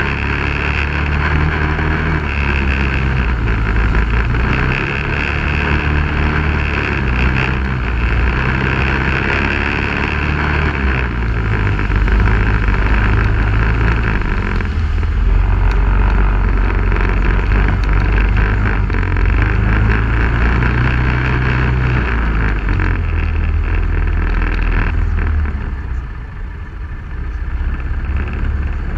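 Off-road vehicle engine running on a dirt-trail ride, its pitch rising and falling repeatedly as the throttle opens and closes, over a steady rush of noise. It eases off briefly near the end.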